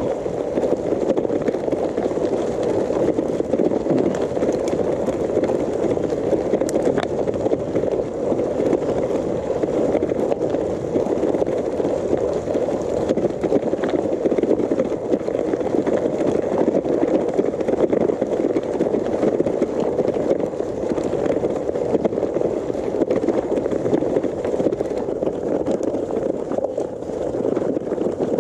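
Gravel bike's tyres rolling fast over a loose stony track: a steady, rough, continuous rolling noise with the bike shaken by the surface.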